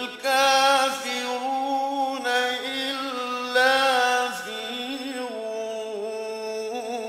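A male reciter chanting the Quran in melodic tajweed recitation, drawing out long held notes with ornamented turns in pitch.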